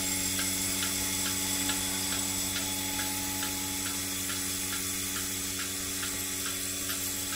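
Portable bucket milking machine running during milking: the vacuum pump hums steadily and the pulsator ticks evenly, about twice a second.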